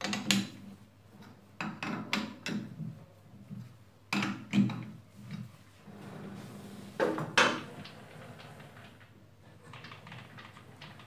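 Metal clanks and clicks of a chuck key working the jaws of a four-jaw lathe chuck as a steel bar is clamped, in short groups of sharp knocks. After the middle, the chuck is turned and a low, steady running sound slowly fades away.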